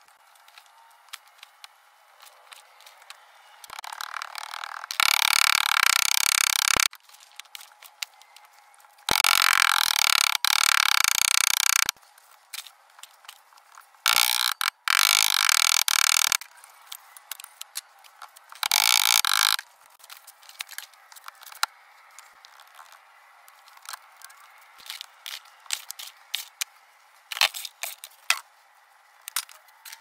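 Red casting sand pouring into a steel moulding flask over coin patterns, in four bursts of hissing, rattling rush lasting one to three seconds each, with small clicks and scrapes between them.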